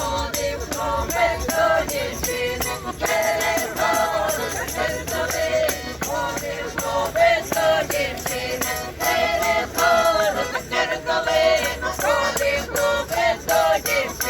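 Music with singing voices over a quick, steady percussion beat.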